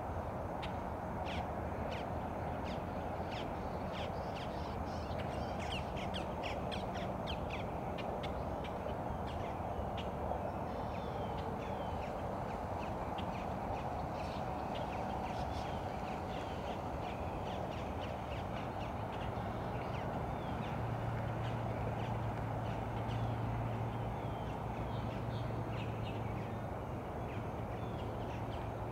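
Crows calling outdoors: a run of short, sharp repeated calls, dense at first and thinning out, over a steady background hiss. A low steady hum joins about two-thirds of the way through.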